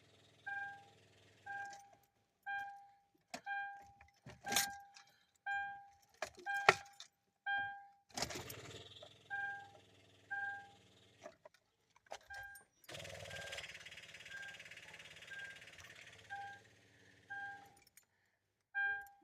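The 2010 Kia Optima's warning chime dings over and over, about once a second, as it does with the key on and the engine not running. Sharp clicks and knocks come around the fifth and seventh seconds, and a steady whirring noise runs for about five seconds in the latter half.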